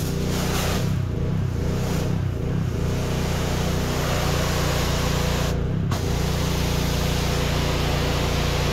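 Gas-engine pressure washer running steadily while its high-pressure water jet sprays with a loud hiss. The spray cuts out briefly about six seconds in while the engine keeps running.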